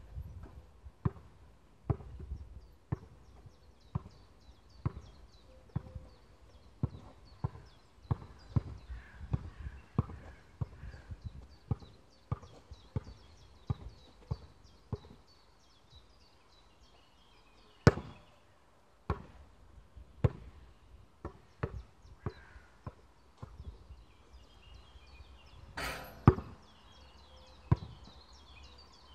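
Basketball bouncing on an outdoor hard court: a string of thuds about one a second, with a pause midway and a few louder sharp bangs.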